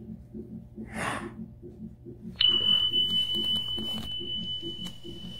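Fetal heart monitor playing the baby's heartbeat as a fast, even pulse, about two and a half beats a second. About halfway through, a steady high electronic beep comes on and holds, louder than the heartbeat.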